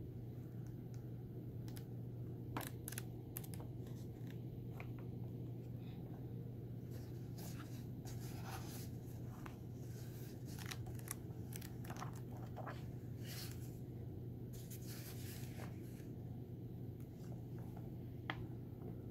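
Pages of a paperback coloring book being turned by hand, paper rustling and flapping in many short brushes over a steady low hum, with one sharper tap near the end.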